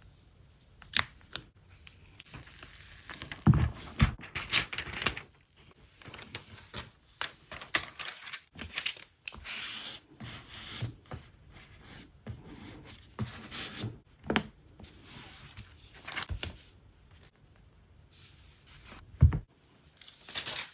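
Product packaging handled by hand: tearing and peeling of paper or film, rustling and scraping, with scattered sharp clicks and a few louder knocks.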